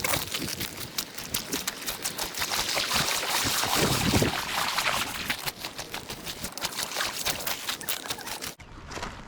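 Creek water trickling and splashing, with many small splashes and clicks, loudest around the middle. The sound changes abruptly near the end.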